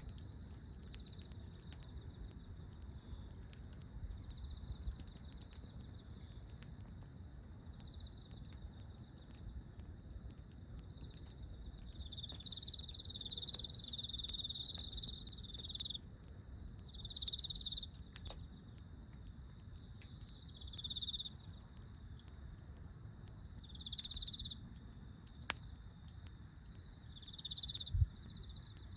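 Crickets trilling in a steady high unbroken tone, with a second insect calling in short separate bursts from about halfway through, over the low crackle of a wood campfire with a few sharp pops.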